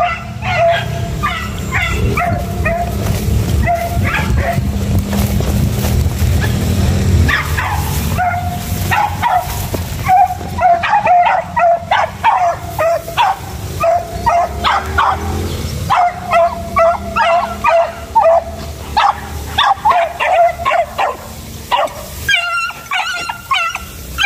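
A hunting pack of beagles and village dogs yelping and baying in many short, high calls, coming in quick runs with brief pauses: the cry of dogs on the trail of a mongoose. A low rumble of wind or handling on the microphone runs under the first two-thirds.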